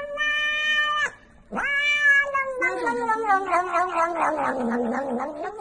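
Domestic cat meowing in two long drawn-out calls. The first stops about a second in. The second rises sharply, holds, then turns into a wavering yowl that slides lower in pitch until it stops near the end.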